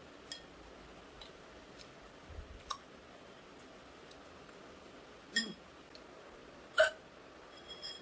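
A woman's genuine, involuntary hiccups: four short, sharp hiccups a second or more apart, the last one near the end the loudest.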